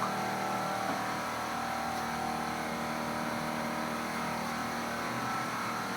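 A motor running steadily: a constant hum with several held tones that does not change.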